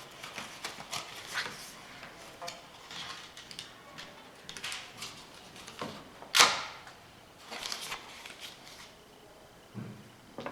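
Irregular clicks, taps and knocks of small objects being handled, with one sharp, loud crack about six seconds in.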